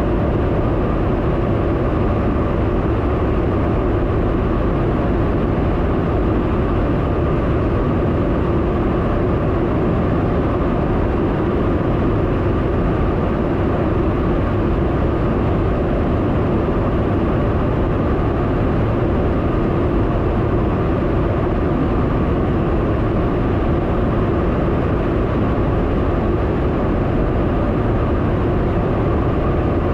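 Steady, loud in-flight drone inside a KC-135 Stratotanker's boom operator's pod: jet engine and rushing airflow noise with a constant hum, unchanging throughout.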